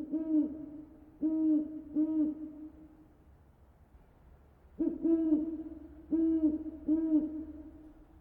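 Low hooting calls, each rising and falling in pitch, repeated in two bouts of a few hoots each.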